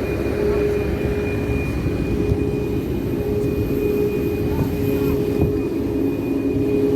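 Jet airliner's engines running steadily, heard inside the passenger cabin: a dense low rumble with a steady mid-pitched hum and a thin high whine held throughout.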